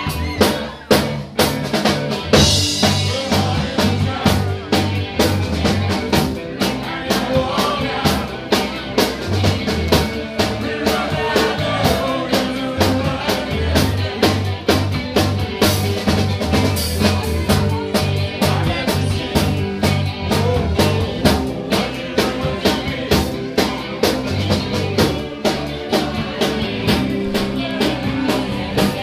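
Live band playing, with a drum kit keeping a steady beat under electric guitar.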